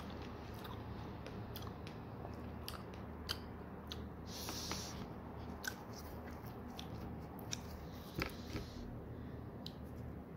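Close-up mouth sounds of chewing a fresh strawberry: scattered wet clicks and smacks, with a brief hiss about four and a half seconds in.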